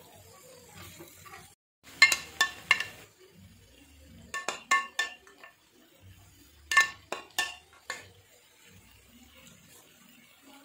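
Three short bursts of ringing clinks as metal tongs and a serving spoon knock against an iron tawa and a glass bowl while chicken pieces are turned and coated with yogurt. Faint sizzling of the chicken on the hot griddle runs between the clinks.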